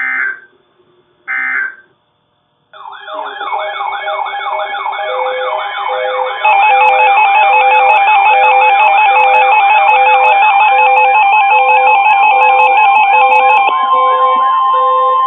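Emergency Alert System header data bursts, two short shrill squawks about a second and a half apart, marking the start of a new alert. After a moment of silence comes a layered electronic alert-tone sequence: a fast wavering siren-like warble over steady tones and beeps at about two a second, stepping louder about six seconds in.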